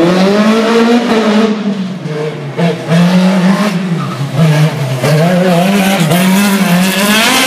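Racing car engine revving hard through a slalom course, its pitch rising and falling over and over as the throttle is lifted and reapplied, with a climb in pitch near the end.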